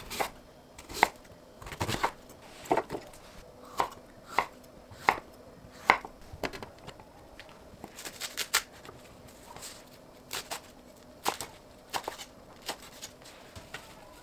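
Kitchen knife slicing sweet potato and then a stack of perilla leaves on a wooden cutting board. Each cut ends in a sharp knock of the blade on the board, in an uneven run of roughly one a second.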